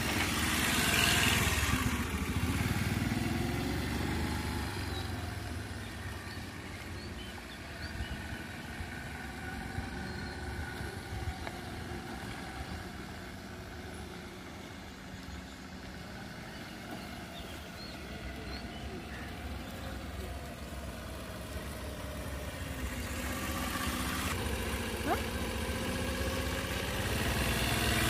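A Hero scooter's small engine running as it is ridden around a course, its pitch rising and falling with the throttle. It is loudest near the start, fades in the middle as it moves away, and grows louder again near the end.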